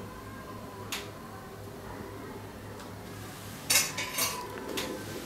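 Steel spatula clinking and scraping against an iron tawa in a quick run of strokes from a little past halfway, as it starts to loosen a flatbread from the pan; a single light click comes about a second in, over a low steady hum.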